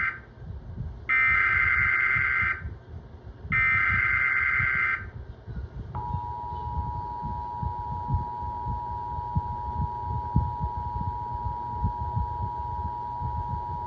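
Emergency Alert System signals: the tail of one and then two more burst of SAME header data, a harsh warbling screech about a second and a half each, which encodes the Child Abduction Emergency alert. About a second after the last burst, the two-tone EAS attention signal (853 and 960 Hz) sounds steadily for about eight seconds.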